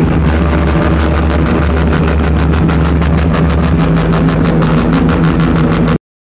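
Motorcycle engines running, mixed with loud music with a heavy bass; the sound cuts off suddenly near the end.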